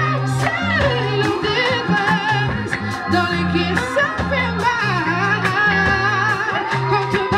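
Live band music played through a PA: a woman sings lead with vibrato over electric guitar, keyboard, a steady bass line and drums.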